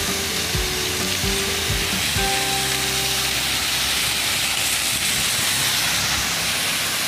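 Roadside waterfall rushing down a rock face: a steady, loud hiss of falling water, with a few held low tones under it that stop and start again.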